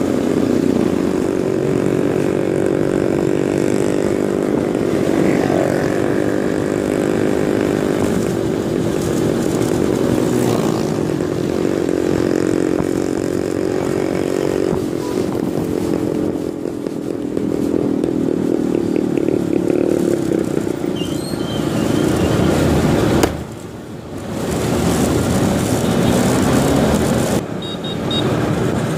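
Small motor scooter's engine running while riding, its pitch drifting up and down with the throttle, over road and wind noise. Twice near the end the sound briefly drops away.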